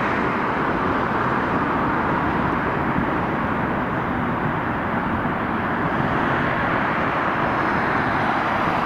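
Jet noise from a Boeing 737 MAX 8's CFM LEAP-1B turbofan engines as the airliner touches down and rolls out along the runway: a steady, loud rush.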